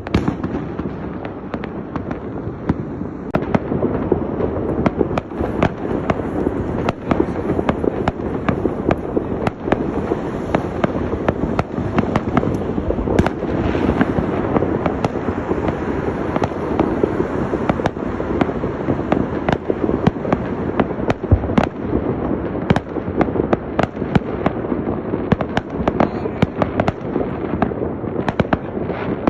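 Fireworks display: many sharp bangs, one after another, over a steady crackling.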